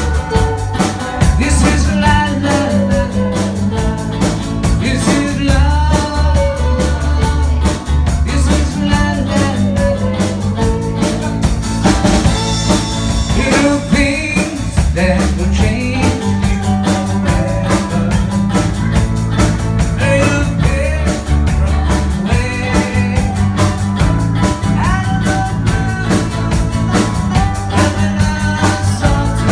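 Live band playing a rock-and-roll song through the PA, with a bass line moving in steady held notes and a drum kit keeping a busy beat.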